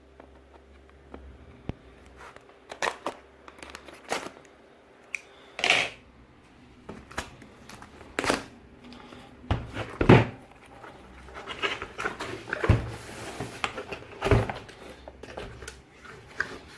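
A cardboard box being cut open with scissors and its packaging handled: scattered knocks, clicks and rustles, with a longer rustling, sliding sound about thirteen seconds in.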